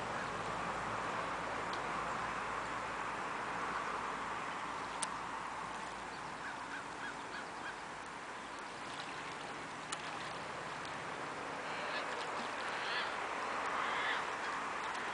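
Canada geese honking: a quick run of about five short calls a few seconds in, then more calls, louder, near the end, over a steady background hiss.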